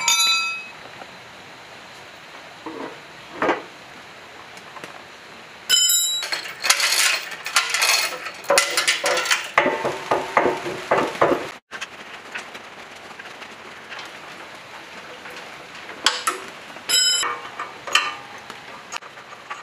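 Heavy metal generator parts clanking and clinking as the alternator is fitted to the engine and its mounting hardware is handled: a ringing clang at the start, another about six seconds in, then a busy run of knocks and scrapes that breaks off suddenly, and a few light ringing clinks near the end. A steady hiss runs underneath.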